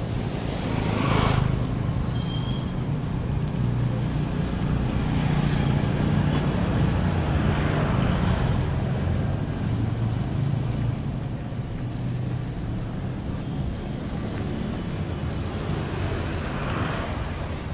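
Street traffic: a low, steady motor vehicle engine hum, strongest around the middle. Three brief rushes come from vehicles passing, about a second in, around eight seconds and near the end.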